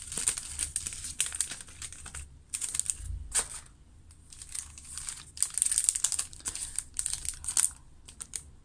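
Clear plastic sleeves of craft papers and stickers being handled, crinkling in irregular bursts, with a soft knock about three seconds in as something is set down.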